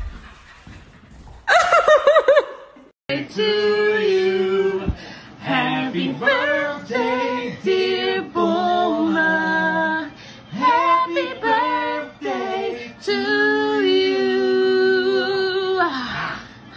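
A short, loud, wavering cry about a second and a half in, then, after a sudden cut, several voices singing a capella in held, harmonised notes.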